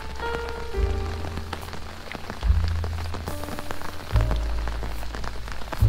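Rain pattering on a surface in irregular drop taps, over background music with a held low bass note that changes about every second and a half.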